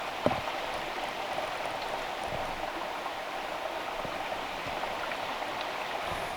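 Creek water rushing and splashing over rocks and small falls, a steady even rush. A couple of soft low knocks come through it.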